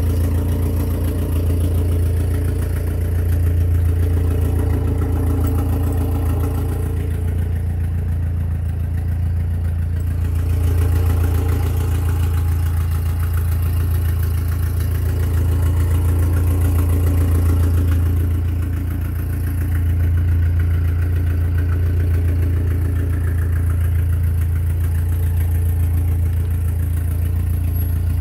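A steady low mechanical drone.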